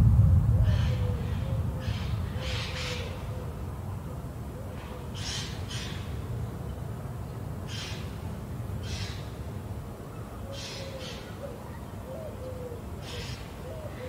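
A low rumble of thunder dies away over the first few seconds. Through it, a bird repeats short, low hooting calls that bend slightly in pitch, alongside brief higher calls about once a second.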